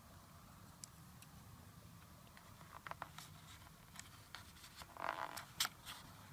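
Faint scattered clicks and small scrapes of plastic chopsticks working noodles in an instant-ramen cup, growing into a denser, louder cluster with a short rustle about five seconds in.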